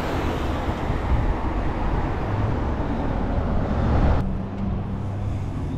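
Street traffic noise, a car going by, growing a little louder up to about four seconds in, where it cuts off abruptly and gives way to a fainter steady low hum.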